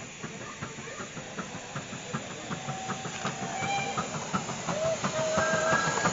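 Miniature LMS Royal Scot steam locomotive chuffing steadily over a hiss of steam, with regular clicks from the rails, growing louder as it approaches.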